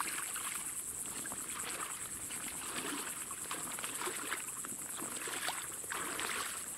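Legs in rubber chest waders sloshing through shallow, duckweed-covered swamp water, step after step. A steady high-pitched insect chirring runs underneath.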